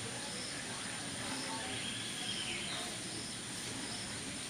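Outdoor background noise with birds: short high chirps repeating about once a second and a brief falling whistle about two seconds in, over a steady high insect-like hiss.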